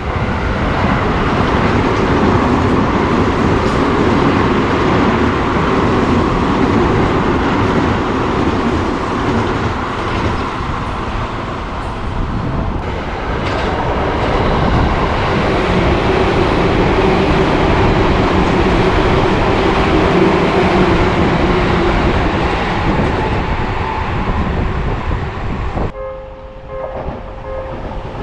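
Seibu Railway electric train running on the rails: a loud, continuous rumble and rail noise. Near the end the noise drops and a steady pitched tone with overtones sounds for about two seconds.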